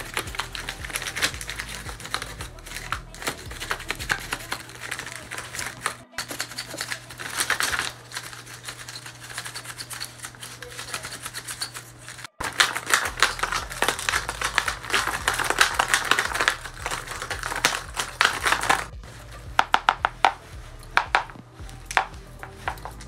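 Folded paper dragon puppets' jaws snapped open and shut over and over, a rapid dry clatter of paper clacks and rustling, with sharp squeaks from one of the puppets in the middle stretch.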